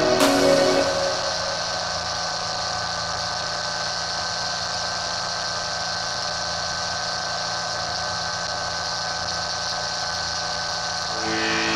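Rotax 582 two-stroke engine of a Chinook ultralight running steadily in flight, with wind rushing past the microphone. Background music fades out about a second in and comes back near the end.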